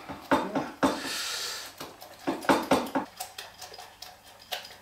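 A fork beating Yorkshire pudding batter in a glass bowl: irregular clinks of metal against the glass, with a short swishing stir about a second in.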